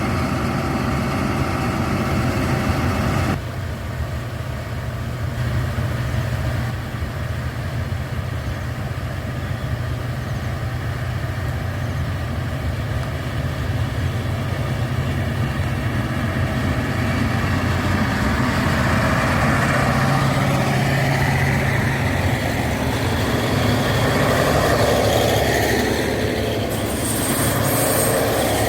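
KiHa 183 diesel railcar's engine running with a steady low hum; about two-thirds of the way through, a louder rushing noise builds up over it.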